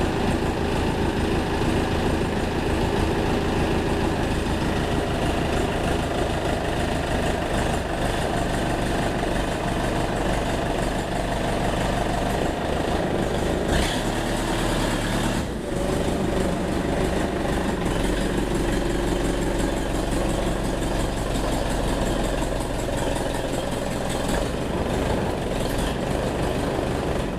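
Farm tractor's engine running steadily, with a short dip in level about halfway through.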